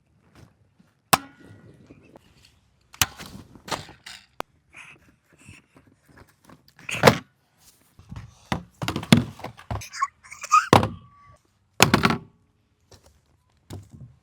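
Irregular knocks, thunks and clicks of hard plastic toy blasters and their parts being handled and set down during unboxing, with a short squeak about ten seconds in.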